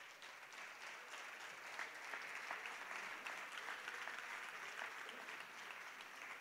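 Audience applauding: many scattered hand claps, faint, building up in the first second and then holding steady.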